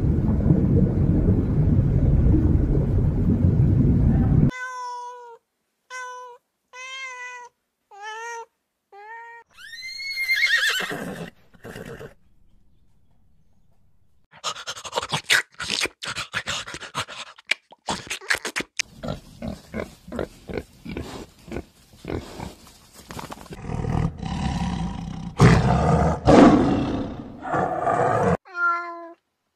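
A succession of animal calls: a loud, low roar for the first four or so seconds, then a run of short, evenly spaced pitched calls, and later a long stretch of rapid clicks and rough calls that grows louder near the end.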